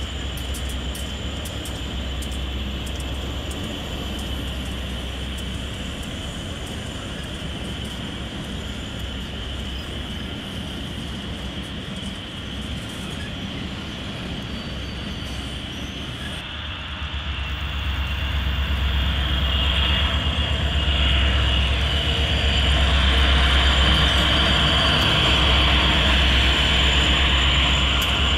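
HO-scale model train, a North Coast Limited streamliner led by EMD F-7 diesels, running on the layout with a steady hum and rolling noise. It grows louder about two-thirds of the way through.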